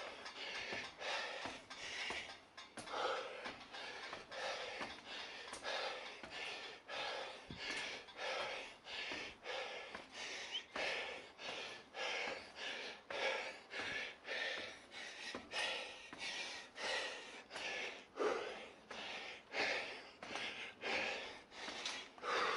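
A person panting hard in a quick, even rhythm of about three breaths every two seconds, winded from climbing a long, steep stair.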